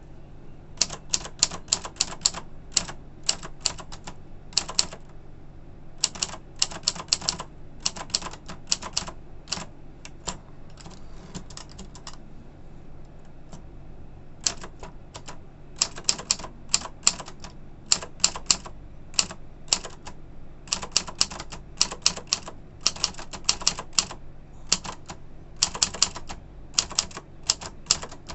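Omega 30 typewriter being typed on: runs of sharp type-bar strikes, several a second, broken by short pauses, over a low steady hum.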